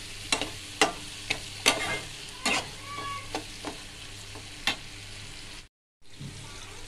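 Flat metal spatula stirring chopped onion and capsicum in a metal kadai, clinking and scraping against the pan at irregular intervals over a steady sizzle of the vegetables lightly frying in oil. The sound drops out for a moment near the end.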